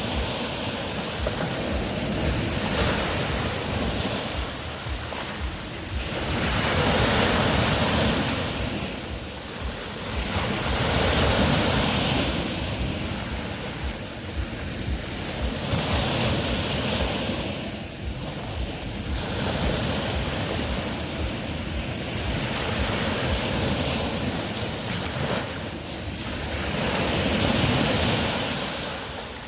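Ocean waves surging and washing ashore in slow swells, one about every four seconds.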